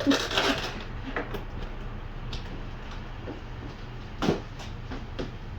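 Cardboard TV box and packaging being handled: a rustle at the start, scattered light knocks, and one louder scrape about four seconds in.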